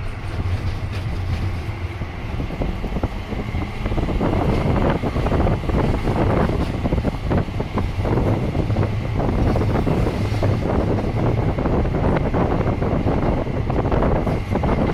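SGP-Lohner E1 tram running along street track: a steady low motor hum under wheels rumbling and rattling on the rails. It gets louder about four seconds in.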